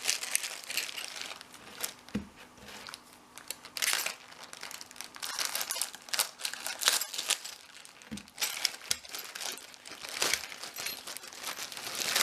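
Packaging crinkling and rustling as it is handled and rummaged through, in irregular crackles, with a couple of soft knocks.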